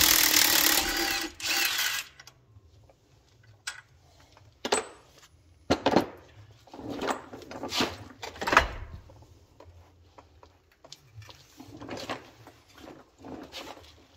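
A heavy truck clutch being worked off the flywheel with a clutch-handling tool: a loud rasping metal noise for about two seconds, then scattered metal knocks, clunks and scrapes.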